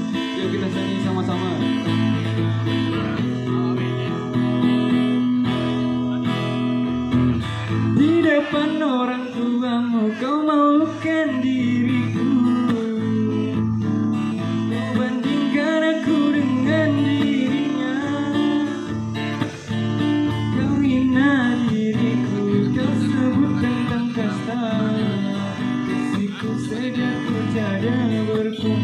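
Live acoustic guitar strummed through PA speakers, with a man singing over it in places.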